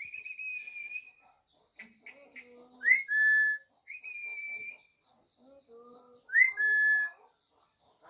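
Clear whistled notes, each held steady for about half a second to a second. Two loud ones come about three and six and a half seconds in; each swoops up and then holds. A faint, fast, high chirping continues behind.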